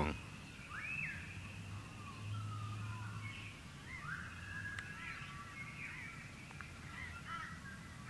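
Dawn chorus of several birds: scattered faint whistles and short chirps, one call sliding upward about a second in, over a low steady hum.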